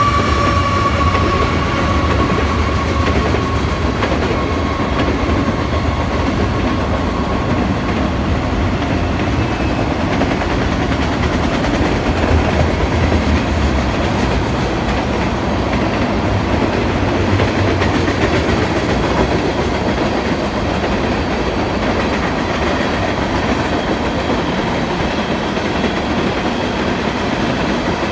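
Freight train rolling past: the steady rumble and clatter of its cars on the rails. A ringing tone slowly falls in pitch and fades away over the first several seconds.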